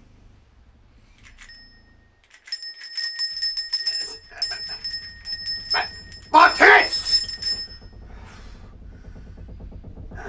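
A small bell ringing rapidly for about six seconds, with a short, loud vocal sound over it near the end.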